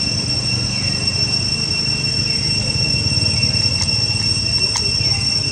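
Outdoor ambience: a steady high-pitched drone over a low rumble, with two faint clicks near the end.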